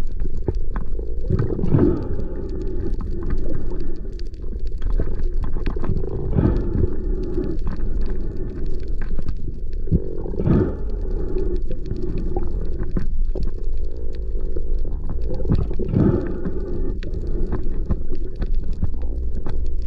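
Muffled underwater sound heard through a camera's waterproof housing: a steady low rumble of water, with louder swishes every four to five seconds.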